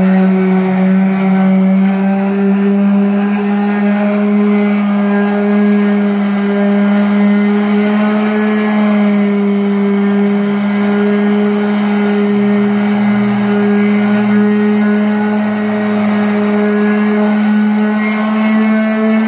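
Random orbital sander running steadily at constant pitch with 320-grit paper pressed on aluminum letters, taking down the mill finish.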